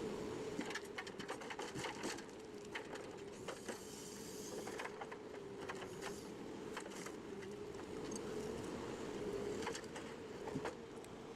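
A machine engine running at a steady, slightly wavering pitch, with scattered sharp clicks and cracks over it.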